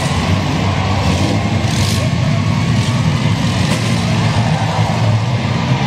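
Several minivan engines running and revving together as the demolition-derby vans drive around a dirt arena, a dense steady rumble.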